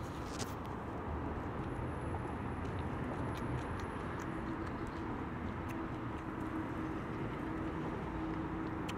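Outdoor urban background with a steady low traffic rumble, a few faint clicks of a plastic fork against a foam takeout tray, and a faint steady hum joining about four seconds in.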